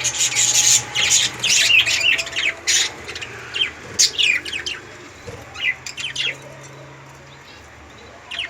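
A group of budgerigars (budgies) chattering and chirping in quick, high warbling calls, busy for the first four seconds or so, then thinning to scattered chirps.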